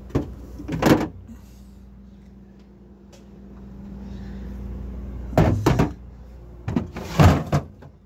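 Several knocks and thuds of a door being handled: two near the start and a cluster in the last few seconds. A low hum swells and fades in between.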